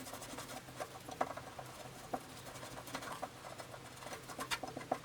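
Quick, irregular scratching and small clicks as old plumber's (Teflon) tape is rubbed and picked off the threads of a shower arm.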